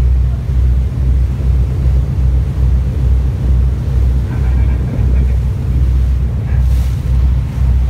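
A tug boat's diesel engines running under load, a loud, steady low throb that pulses evenly, heard on board.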